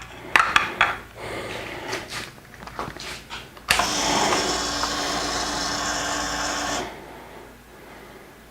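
A few clicks, then the Yamaha WR250R's electric fuel pump whining steadily for about three seconds as it primes with the ignition switched on, before it cuts off sharply.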